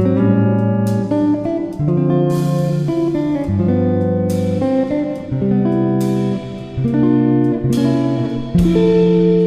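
Background music: guitar playing sustained chords, with a new chord struck every second or so.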